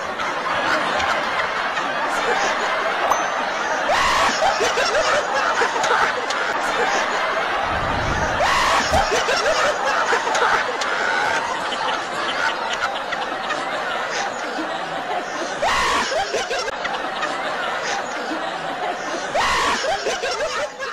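People laughing hard, one after another, with a few abrupt switches from one laugh to the next.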